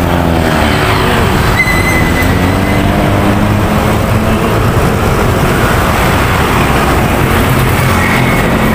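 Steady road traffic noise: trucks and motorbikes running on the road close by.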